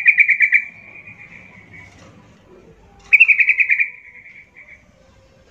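Yellow-vented bulbul singing: two bubbly, rapid chattering phrases about three seconds apart, each opening on a higher note and trailing off into softer notes.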